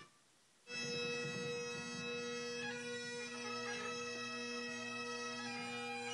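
Bagpipes playing a slow tune over a steady drone, starting after a short silence under a second in, heard through a television's speaker.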